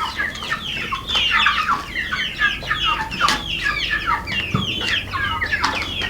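A flock of chickens, layers and broilers, clucking and calling together: many short, overlapping, mostly falling calls with no pause.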